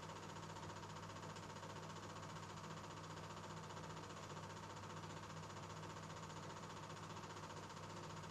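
Faint steady electrical hum with hiss and no other sound: the noise floor of an old silent-film transfer.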